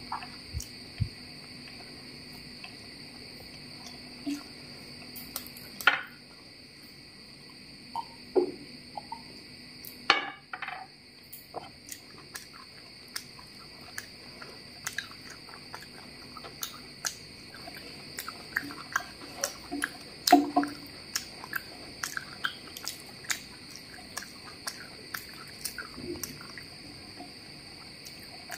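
Close-miked eating of mutton biryani by hand: soft chewing, wet mouth clicks and the light taps of fingers gathering rice on the plate, as many short clicks scattered throughout. Behind them runs a steady, high cricket-like chirring.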